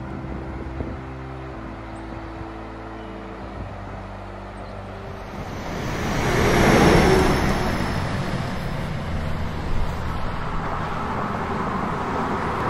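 Background music fades out over the first few seconds. Then a road vehicle passes, its noise swelling to a peak and easing off into a steady traffic hum.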